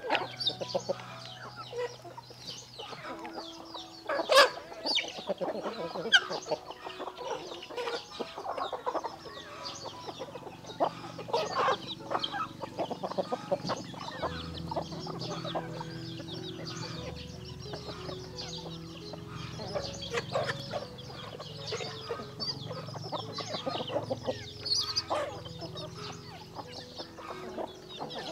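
Chickens clucking and calling over one another, with a sharp knock about four seconds in.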